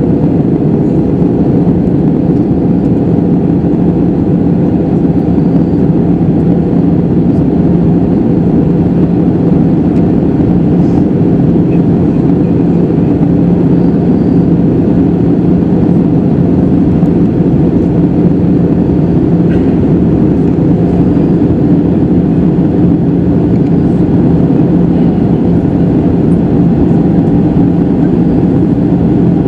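Cabin noise of an Airbus A320-214 in flight, heard from a seat over the wing: a loud, steady drone of airflow and its CFM56-5B engines, with a low hum running through it. The aircraft is descending toward landing.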